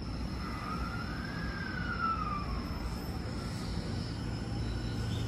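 JR 209-series electric commuter train pulling away from a station platform. Its traction equipment gives a whine that glides up and back down in pitch, then fainter higher tones rise as it gathers speed, over a low hum.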